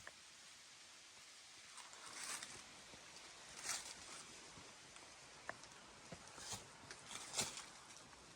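Faint, irregular footsteps and scuffs of a hiker on a rocky trail, with a few louder crunches scattered through.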